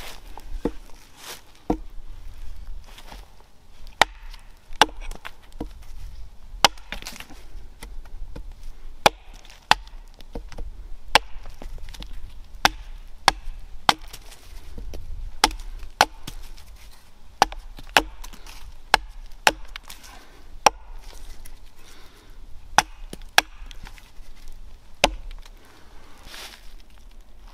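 Hatchet chopping into the end of a wooden pole braced on a log: sharp wooden strikes about once a second with a few brief pauses, chips splitting off. The chopping stops a couple of seconds before the end.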